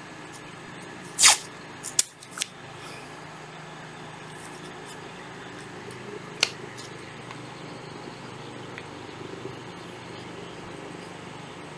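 A few sharp plastic knocks and clicks from a cordless drill and a marker being handled, the loudest about a second in, over a steady low hum.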